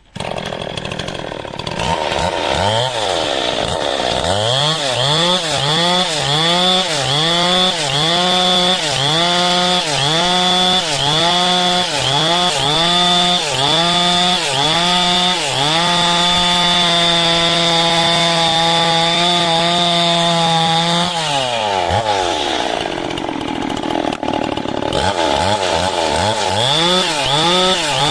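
Stihl two-stroke chainsaw ripping a coconut-palm log lengthwise into beams, its engine speed rising and falling about once a second. It holds steady at high speed for several seconds, drops to idle about 21 seconds in, then revs back up into the cut.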